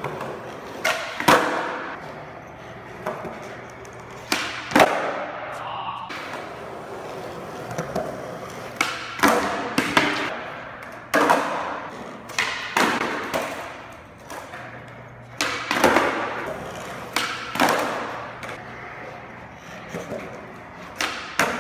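Skateboard tricks on a smooth concrete floor: wheels rolling, and a series of sharp pops and slaps as the board's tail snaps and the board lands on the concrete. On a missed trick the board clatters down on its own, landing upside down.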